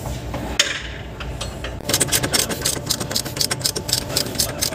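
Ratchet wrench clicking rapidly and evenly, about six or seven clicks a second, starting about two seconds in, over a faint steady hum, as a bolt is worked on the forklift.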